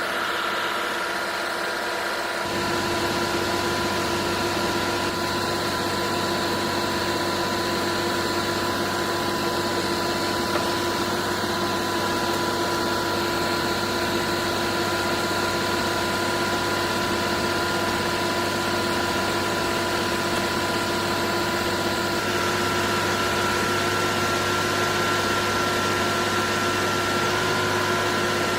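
Junjin concrete pump truck running: a steady engine drone with several held tones, a deeper hum joining about two and a half seconds in.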